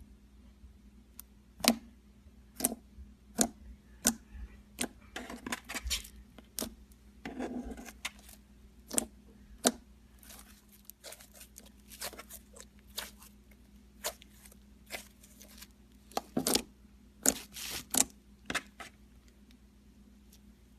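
Slime being squeezed and poked by hand, giving an irregular run of sharp sticky clicks and pops, with a few quick crackly clusters about six, eight and seventeen seconds in.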